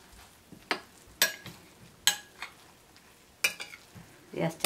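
A metal spoon stirring torn injera in a wet flaxseed sauce, clinking sharply against a ceramic bowl every second or so. A longer clatter comes near the end.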